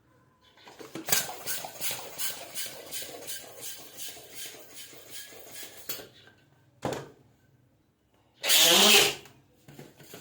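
Balloon being inflated with a pump, in a steady rhythm of about three air pulses a second for some five seconds. A short rush of air follows, then a louder rush of air with a wavering squeal, under a second long, near the end.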